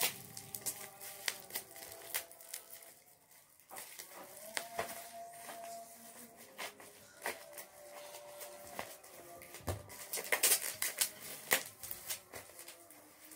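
Black plastic parcel wrapping being cut with scissors and pulled and torn open by hand: scattered snips and crackles, with a louder flurry of crinkling near the end.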